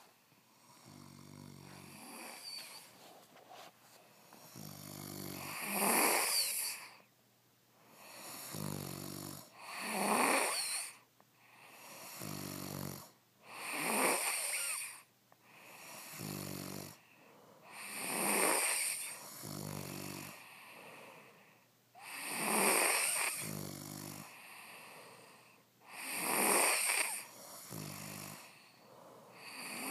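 Snoring in a steady rhythm, about one breath every four seconds: each cycle has a low rattling snore followed by a louder, hissing breath.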